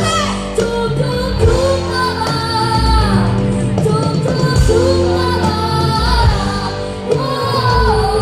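Live rock band playing, with a singer holding a melodic line over bass, guitar and drums.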